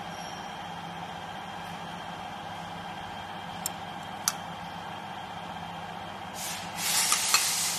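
Flag labeling machine running with a steady hum, two light clicks a few seconds in, then a loud hiss building over the last second and a half.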